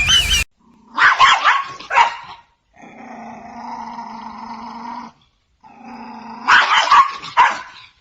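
A dog barking: two loud barks about a second in and two more near the end, with a steady growl between them.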